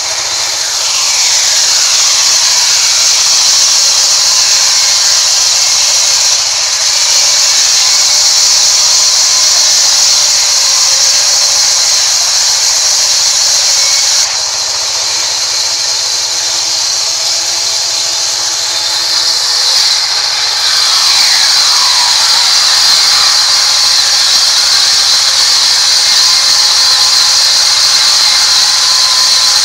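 Sawmill band saw cutting mahogany, a loud, steady high-pitched hiss of the blade running through the wood. A whine falls in pitch near the start and again about two-thirds of the way through.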